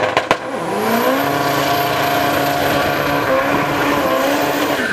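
Car engine in a drag-strip burnout: it revs up through the first second and is held at steady high revs, then drops off near the end. A few sharp cracks come right at the start.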